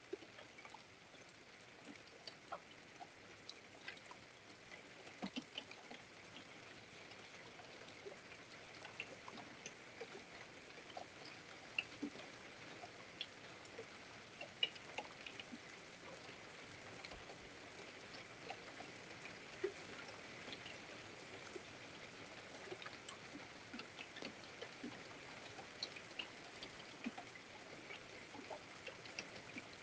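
Light rain: scattered raindrops ticking on hard surfaces over a faint, steady hiss of rain that grows slightly louder.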